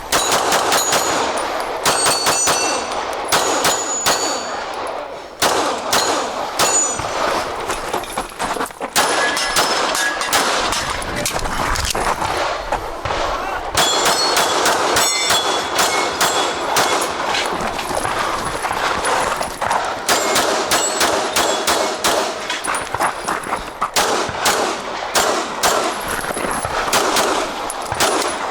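Pistol shots fired in quick strings during a timed stage, with steel targets ringing as they are hit. Several short pauses break up the strings.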